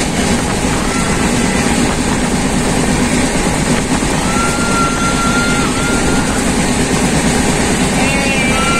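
Train running along the track: a steady, loud rush and rumble of wheels on rail and passing air. A faint, thin high squeal comes and goes through it, the longest about halfway through.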